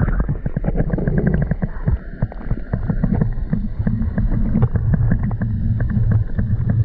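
Muffled underwater sound picked up by a submerged camera: a low rumble of moving water with a steady crackle of small clicks and ticks.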